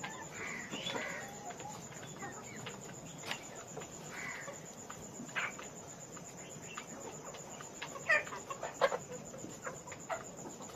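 A flock of broiler chickens clucking and calling in short scattered notes, with a few sharper, louder calls about eight to nine seconds in.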